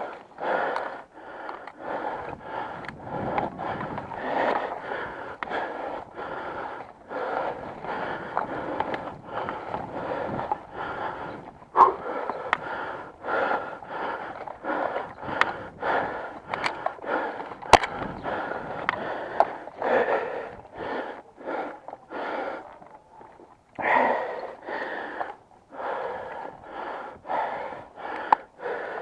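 A person's heavy, rhythmic breathing close to the microphone, with a few sharp clicks, the loudest about twelve and eighteen seconds in.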